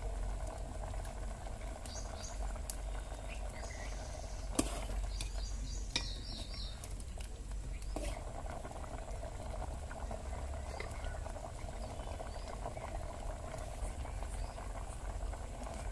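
Thick chicken curry bubbling steadily in a metal pot over a wood fire, with a few sharp crackles from the burning wood.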